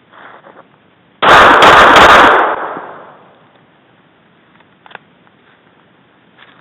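Glock 26 Gen 4 9 mm subcompact pistol firing a quick string of shots, about a second long, loud enough to overload the recording, with the report dying away over the next half second or so.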